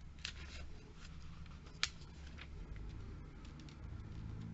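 Glossy catalogue pages being handled and turned by hand: quiet rustles and crackles of paper, with one sharp paper snap a little under two seconds in, over a low steady hum.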